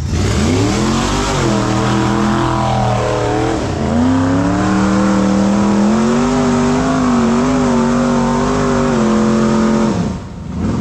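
High-horsepower off-road hill-climb rig's engine revving hard and held at high revs. The revs dip briefly about four seconds in, climb again and hold, then fall away near the end.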